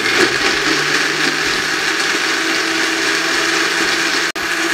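Electric countertop blender running steadily at speed, churning a jug of chilled water, lemon juice, sugar and roasted peanuts into lime juice. It drops out for an instant near the end.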